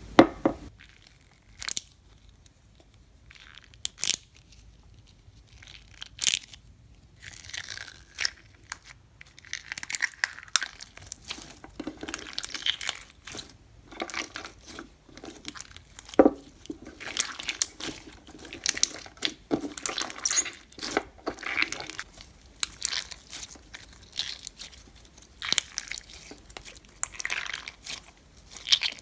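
A clear frog spawn slime packed with beads, squished and poked by hand, making irregular crackling pops and crunches. The pops are sparse for the first several seconds, then come almost without pause.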